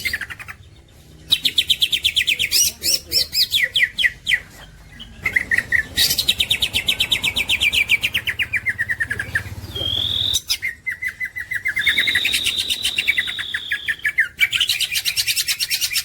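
A green leafbird (cucak ijo) singing: fast trills and rapid runs of chattering notes, some sliding down in pitch, broken by short pauses, with a held whistle-like note about ten seconds in and another longer one a couple of seconds later.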